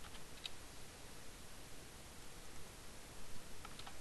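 Computer keyboard keys clicking in two short runs of typing, one near the start and one near the end, over a faint steady hiss.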